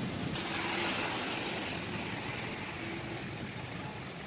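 Rain and traffic on a wet city street: a steady hiss that swells about half a second in and then slowly fades.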